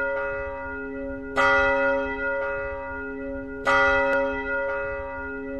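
A deep bell struck twice, about a second and a half in and again near four seconds, each stroke ringing on and slowly fading. This is the bell intro of a hip-hop backing track.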